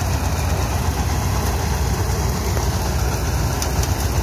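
Engine-driven mustard and kalai threshing machine running steadily. A continuous low engine drone mixes with the threshing noise and a few faint ticks.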